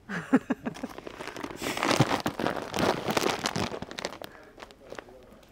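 A 20 kg plastic sack of rice rustling and crinkling as it is hauled up and held against the chest. The rustle peaks in the middle and dies away after about four seconds.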